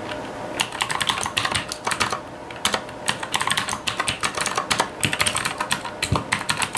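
Typing on a computer keyboard: a quick, uneven run of keystrokes, with a short pause a little after two seconds in.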